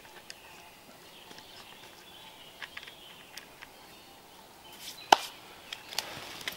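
Trail camera being strapped to a pine trunk: faint scattered clicks and rustles of handling, with a sharper click about five seconds in and a few more just after.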